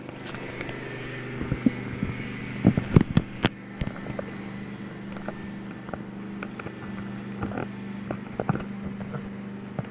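Knocks, clicks and rubbing from the camera being handled and repositioned on its mount, the loudest about three seconds in, over a steady low hum.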